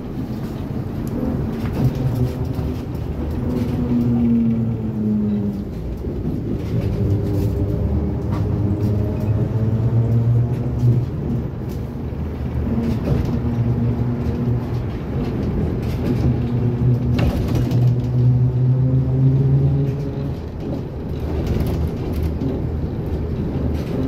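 Inside a moving ZiU-682 trolleybus: the electric traction drive hums, its pitch rising and falling as the vehicle speeds up and slows, with road noise and the body's knocks and rattles over bumps.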